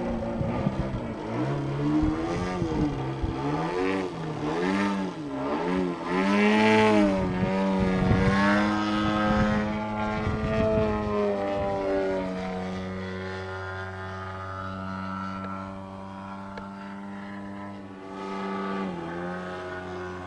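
Aeroworks Extra 300 radio-controlled aerobatic plane in flight, its DLE111 twin-cylinder two-stroke petrol engine with Zimmerman canister mufflers turning a 27x10 Mejzlik propeller. The engine's pitch rises and falls over and over for the first twelve seconds, then settles to a steadier, quieter drone, dipping briefly near the end.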